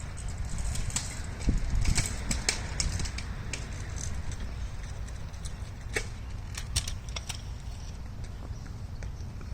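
Woodpecker pecking at a tree: irregular single taps on wood, bunched about a second in and again around six seconds, over a low rumble of wind on the microphone.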